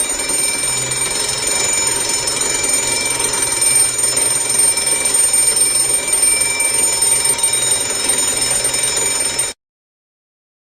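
Alarm clock bell ringing continuously for about nine and a half seconds, then cutting off suddenly.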